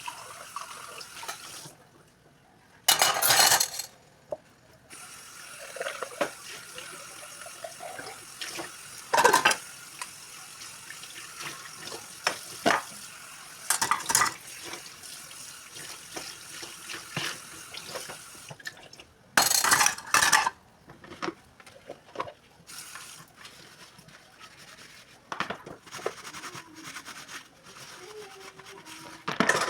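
Dishes being washed at a kitchen sink: tap water running, with plates, pots and cutlery clinking and clattering. About five louder bursts of splashing and clatter stand out along the way.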